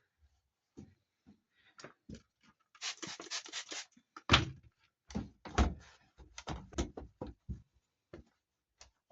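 Plastic tumble dryer parts being handled and wiped down: a scatter of knocks and thunks, the loudest about four and a half seconds in, with about a second of rubbing about three seconds in.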